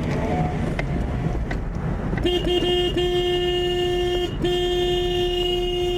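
A vehicle horn honking: after about two seconds without it, three quick toots, then long held blasts with a short break just past four seconds in.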